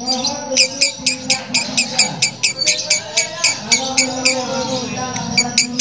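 Female lovebird's harsh 'ngekek' chatter: a long unbroken run of short, sharp, rasping calls at about four a second, rough enough to be likened to a diesel engine. A lower voice-like murmur runs underneath.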